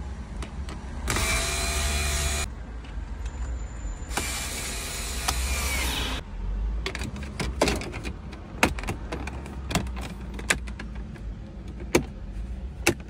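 Cordless drill/driver running in two short bursts, about a second and a half then two seconds, driving in the screws that fix the radio head unit into the dash. It is followed by a string of sharp clicks and knocks from the plastic unit and dash trim being handled.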